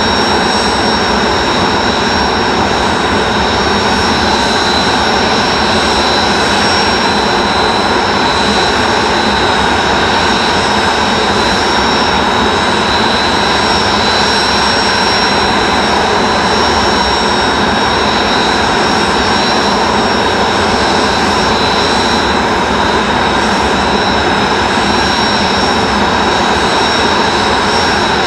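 Kawasaki T-4 jet trainers' turbofan engines running steadily while parked during post-start checks: a continuous jet roar with a steady high-pitched whine over it.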